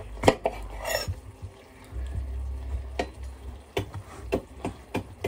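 A knife cutting an apple on a cutting board: several sharp knocks of the blade on the board, spaced irregularly, over a low steady hum.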